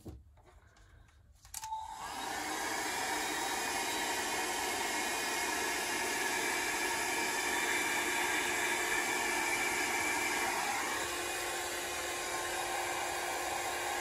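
Small handheld blower switched on with a click about a second and a half in, its motor whining up to speed, then blowing steadily. It is being used to push and dry wet alcohol ink.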